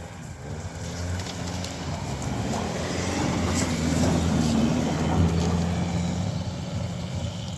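Suzuki Escudo off-roader climbing a steep hill under power, its engine working hard amid a wash of tyre and ground noise. It grows louder through the middle and eases off slightly near the end.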